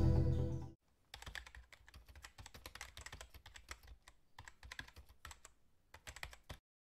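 Background music fading out in the first second, then a run of faint, rapid keyboard-typing clicks, a typing sound effect, with a couple of brief pauses.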